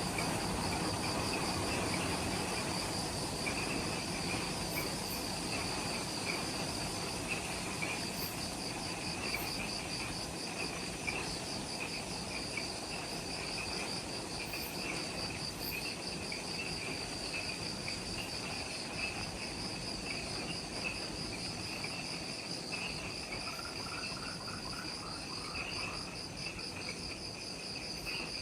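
Twilight chorus of insects in subtropical forest: a high, fast-pulsing trill and a lower chirping trill run steadily together over a soft background hiss. Near the end a short series of lower chirps joins briefly.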